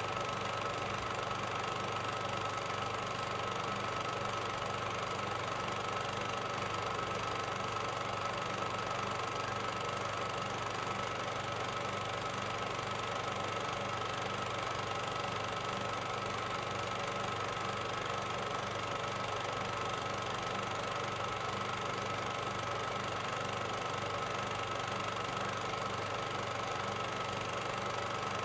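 A film projector running steadily, its motor and mechanism giving an even mechanical hum and hiss with a constant whine on top.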